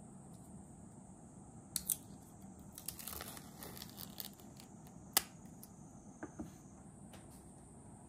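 Plastic food packaging crinkling and being torn open, with a few sharp clicks and snaps: the loudest a little after five seconds in.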